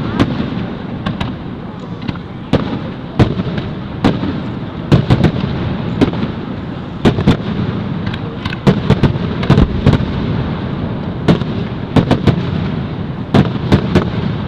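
Fireworks display: aerial shells bursting in quick, irregular succession. Sharp bangs, some in rapid clusters, sound over a continuous low rumble.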